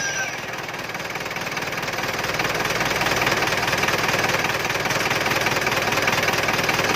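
Isuzu 4BC2 four-cylinder diesel engine, fitted with a turbocharger, idling steadily with a diesel clatter. Its level rises a little over the first couple of seconds and then holds steady.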